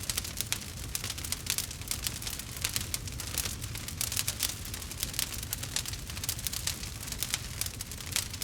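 Wood fire burning in a fireplace, crackling continuously with many small sharp snaps each second over a low, steady rumble of the flames.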